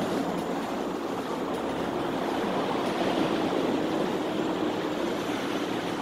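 Steady rumbling running noise of a moving vehicle, with a low even hum under it and no breaks.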